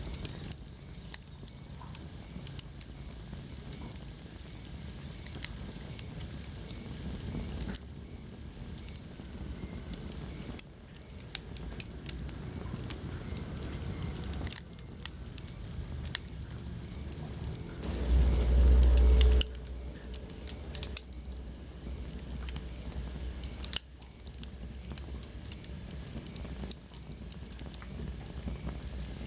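Wood fire crackling in a fireplace: frequent sharp pops and snaps over a steady low rumble of the flames. A louder low rumble lasting about a second and a half comes about two-thirds of the way through.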